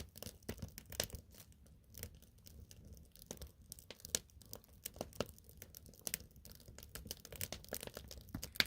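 Irregular crackling and rustling, a steady run of sharp little clicks with no rhythm.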